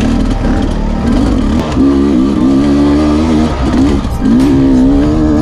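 Enduro dirt bike's engine revving up and down with the throttle while riding a dirt trail, with two stretches of held higher revs from about two seconds in and again near the end.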